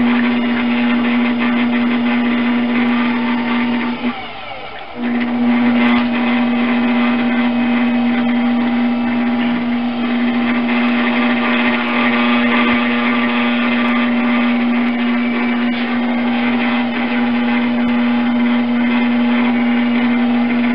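Electric potter's wheel motor humming steadily with wet clay rubbing under the hands as a five-pound lump is centred. The hum drops out briefly about four seconds in, then resumes.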